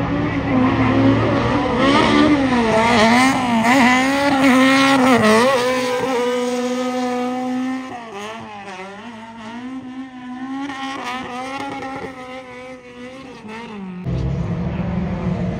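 Drift car's engine revving hard on and off the throttle through a drift, its pitch rising and falling every second or so. The sound drops in level about halfway through, then jumps back up near the end.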